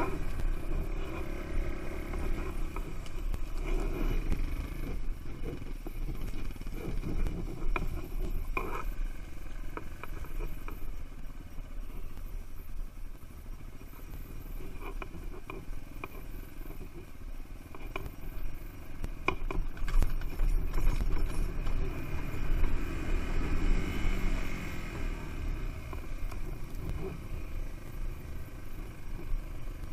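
Dual-sport motorcycle engine running while ridden over rough forest and field ground, heard from a helmet-mounted camera with wind rumbling on the microphone. The engine speed rises and falls, louder for a few seconds about two-thirds of the way through, with occasional knocks from the bumps.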